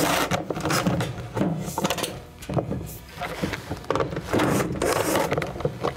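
Cordless drill/driver with a T15 Torx bit backing out the screws at the back of a top-load washer's control panel. It runs in short spells, with a quieter pause in the middle.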